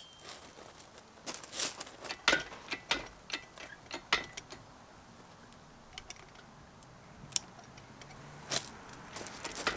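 Light metallic clinks and rattles from handling a fishing magnet's eyelet, rope, and a crane scale's hook and chain. A quick run of them comes in the first half, then a few single clicks.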